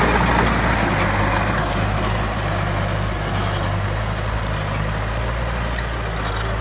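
Yanmar EF453T LX tractor's diesel engine running steadily while driving a rotary tiller through wet paddy soil. It fades slightly as the tractor pulls away.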